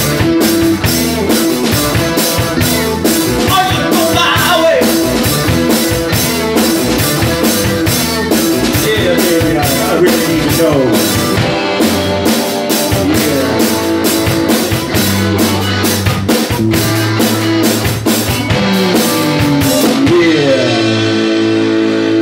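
Live rock band playing full out, with a drum kit pounding a steady beat under electric guitar lines. About twenty seconds in, the drums stop and a final chord is left ringing.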